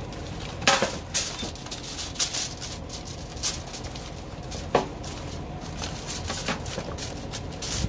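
Aluminium foil crinkling and crackling in irregular bursts as gloved hands press and fold it over the edges of a grill drip pan.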